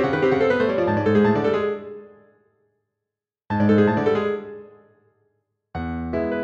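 Solo piano playing with pauses. A full chordal phrase rings out and dies away in the first two seconds, and after a silence a second struck phrase fades out about halfway through. Near the end the playing resumes with held notes.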